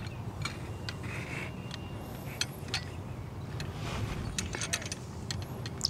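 Scattered light clicks and clinks from hole-cutting tools being handled on a putting green: the cup cutter and the cup setter, stepped on to seat a new cup level. A steady low rumble runs underneath.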